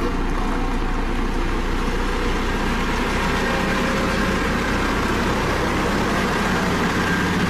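Dynapac CC522 tandem asphalt roller's diesel engine running steadily with a low, even hum.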